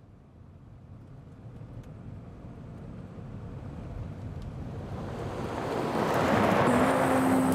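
A car approaching at speed over dirt: a rushing noise of engine and tyres that swells steadily louder as it nears. Music starts in near the end.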